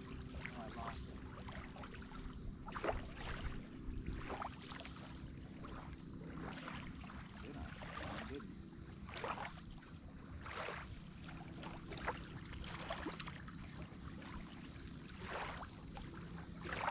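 Small waves lapping at a sandy lakeshore in short irregular splashes, over a faint low steady hum.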